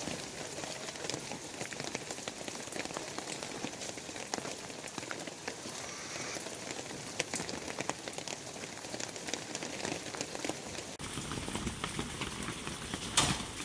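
Steady rain pattering on a surface, a dense scatter of separate drops ticking, with one louder tick near the end.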